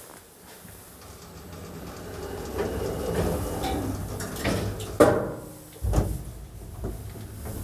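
The automatic sliding doors of a 2015 KMZ lift roll shut with a swelling rumble and meet with a bang about five seconds in. A deep thump follows a second later as the car sets off, and then comes the steady low hum of the car travelling.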